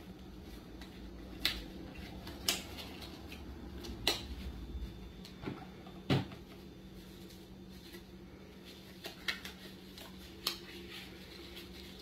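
Disposable gloves being pulled on and a plastic tub handled on a table: a handful of sharp snaps and knocks a second or more apart, over a faint steady hum.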